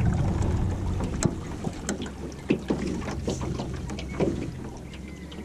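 A small 12 ft V-hull boat under way on choppy water: water lapping and knocking against the hull, over a low steady hum that fades toward the end.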